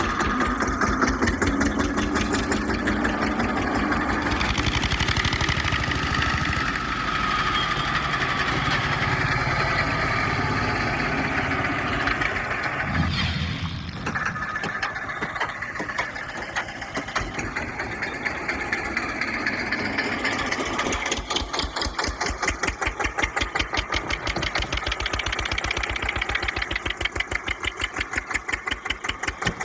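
An engine running, with an even pulsing beat that grows plainer in the second half.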